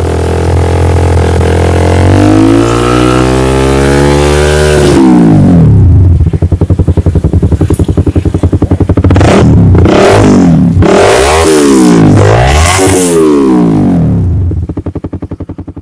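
Honda CB150R's single-cylinder engine through an aftermarket Akrapovic GP M1-style exhaust, revved up once and let drop, then blipped several times in quick succession. Near the end the engine slows to a loping beat and fades.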